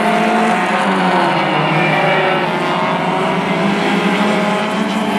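Several race car engines running at speed at once, their steady engine notes overlapping at different pitches that drift slightly up and down.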